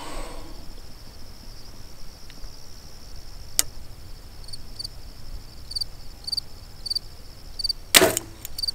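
A Mathews VXR compound bow fired once near the end: a single sharp snap of the string as the arrow is released.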